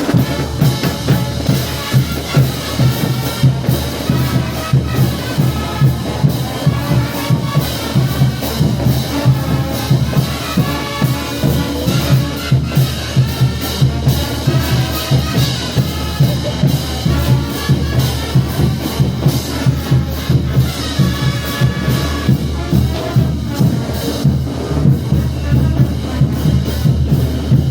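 Brass band playing a marching tune over a bass drum and snare keeping a steady beat.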